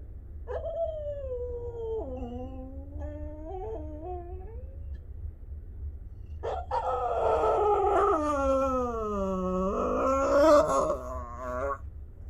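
A dog giving two long, drawn-out howling whines. The first is a few seconds long and falls in pitch with some wavering. The second is louder and longer, dipping low and then rising again before it cuts off near the end.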